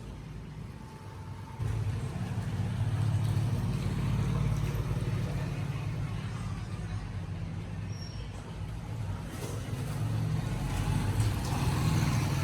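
A motor vehicle's engine running with a low, steady rumble that comes in abruptly about one and a half seconds in.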